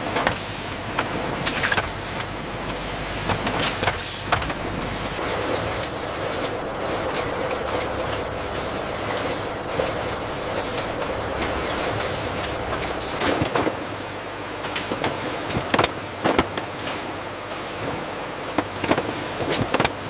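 Factory machinery running steadily, with scattered sharp clanks and knocks over the top, several close together around two-thirds of the way in.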